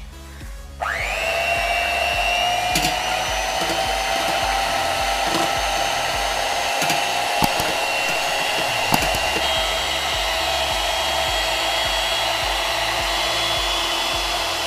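Electric hand mixer switching on about a second in, its motor whine rising briefly and then running steadily as its beaters whisk raw eggs in a steel bowl.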